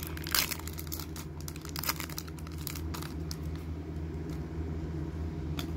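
Foil wrapper of a Panini Prizm trading-card pack being torn open and crinkled by hand, in several short rustles over the first three seconds, then a single small click near the end, over a steady low hum.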